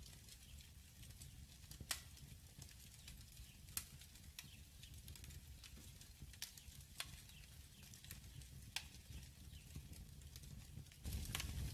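Faint crackling fire in a fireplace, with scattered sharp pops over a low rumble. It grows louder near the end.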